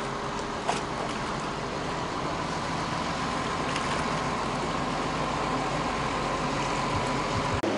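Steady engine drone with a constant whine on top, the idling diesel of the mobile boat-lift crane holding the catamaran in its slings.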